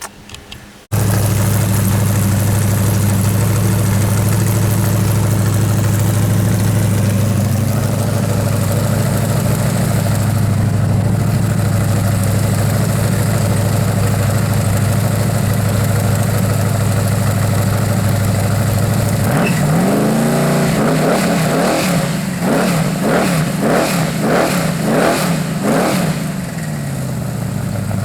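Small-block Chevrolet V8 cuts in suddenly about a second in, idling steadily. About two-thirds of the way through it is revved in a string of quick throttle blips, then settles back to idle.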